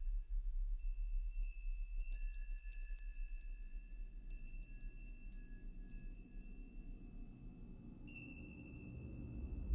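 High, bell-like metallic chimes struck one after another, with clusters of strikes about two seconds in and again about eight seconds in, each tone ringing on. A low steady rumble lies beneath.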